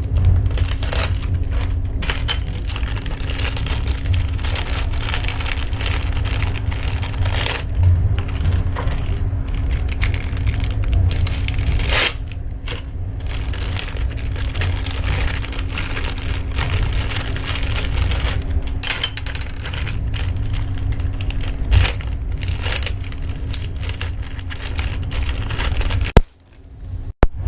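Small metal parts and tools being handled on a workbench: scattered clicks, clinks and rattles over a steady low hum. The sound cuts out briefly near the end.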